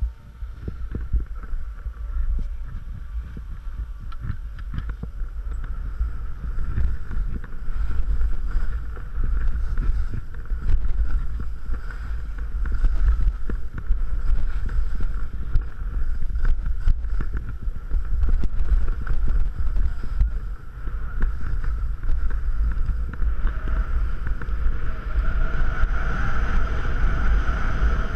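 Wind buffeting a helmet-mounted action camera's microphone while skiing downhill, with the skis hissing and scraping over packed snow; it grows louder after the first several seconds.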